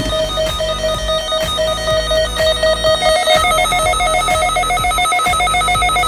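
Electronic intro music: a rapidly pulsing, ringtone-like synth tone over a bass line and beat, stepping up in pitch about halfway through.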